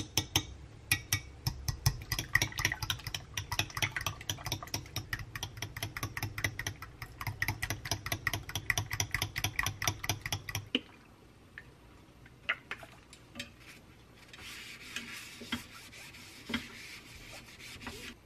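Wooden chopsticks beating eggs in a glass bowl: fast clicking against the glass, many strokes a second, for about ten seconds. Then it stops, and after a few light taps comes a soft rubbing as a paper towel wipes oil over a rectangular omelette pan.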